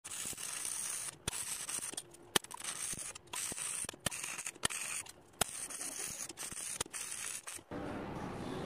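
Electric welding arc crackling and hissing in short runs, cut off by brief gaps and punctuated by sharp clicks; about 7.7 s in it gives way to a softer, steady rumble.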